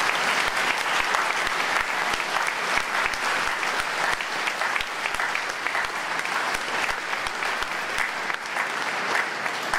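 Audience applauding steadily: a dense patter of many people's claps.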